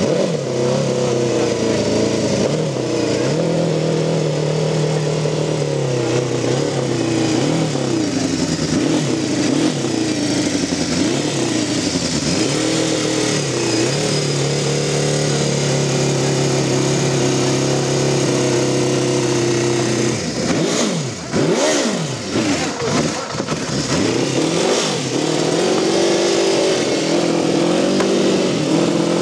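1979 Benelli 500 four-cylinder race engine on open exhaust pipes, running and being revved: the revs rise and fall slowly at first, then the throttle is blipped sharply several times about two-thirds of the way in.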